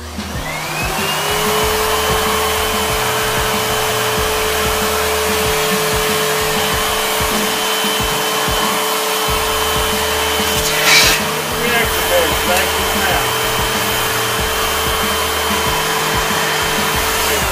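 Vacuum cleaner switched on, its motor whine rising to a steady pitch within about a second, then running steadily as the hose nozzle works over the air purifier's reactor pads and pre-filter, with a brief louder rush of air about two-thirds through. The motor winds down at the very end.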